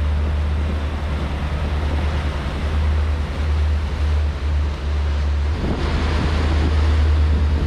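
Fishing boat under way: a steady low engine drone under a wash of wind and water noise, which grows a little louder about six seconds in.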